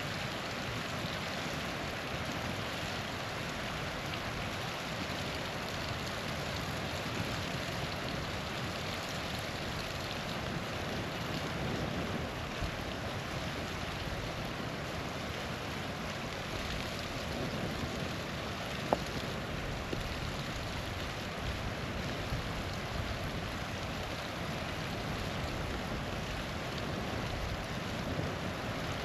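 Small waterfall rushing steadily, an even hiss of falling water. A few faint ticks and one sharp snap about two-thirds of the way through.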